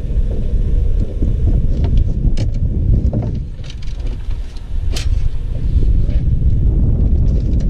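Wind buffeting the microphone, a loud, fluttering low rumble, with a few sharp clicks and knocks from gear handled on the boat, the loudest about five seconds in.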